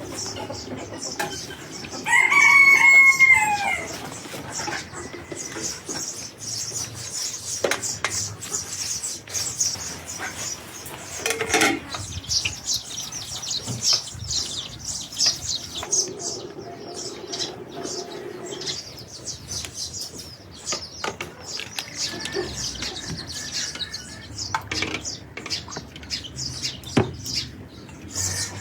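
A rooster crows once, about two seconds in, against a steady scatter of high chirping from small birds and a few short knocks or flaps.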